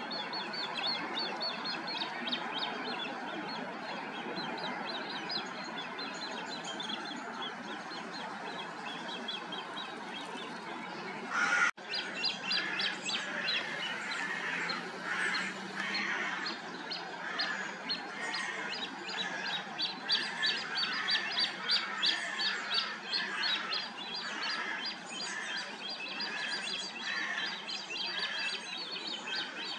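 A dawn chorus of birds chirping and singing, many quick repeated high notes over a steady background hiss. About twelve seconds in, the sound breaks off abruptly with a short burst and comes back with louder, rhythmic calls several times a second.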